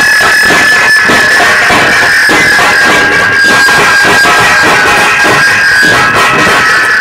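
A group of dhol drums beaten loud and fast, the strokes dense and overlapping, with a steady high-pitched tone sounding under the drumming.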